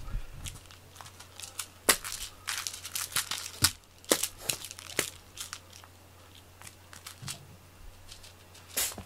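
Scattered light rustles and taps from a cat-teaser wand toy being swished over foam floor mats while a cat bats at it. The sounds are thickest in the first few seconds and thin out after that.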